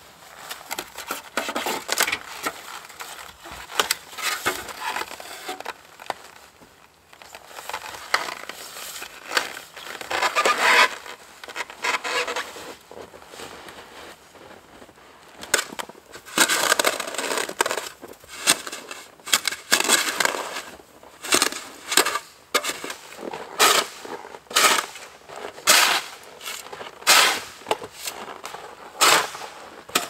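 Snow shovel scooping and scraping heavy, packed snow in a run of short crunching strokes, settling into about one stroke a second in the second half.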